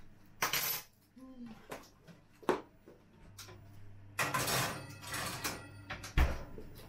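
Household handling sounds: a few sharp knocks and clicks, a short rush of hiss about four seconds in, and a low thud near the end.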